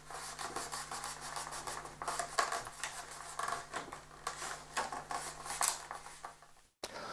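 Fingers rubbing and pressing an adhesive decal down onto a foam model-airplane wing: a run of irregular soft scratching and rubbing strokes over a faint steady hum, breaking off briefly just before the end.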